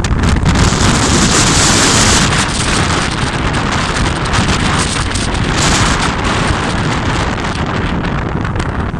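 Strong wind buffeting the microphone in gusts: loud, rough wind noise that swells and eases, heaviest for the first two seconds or so.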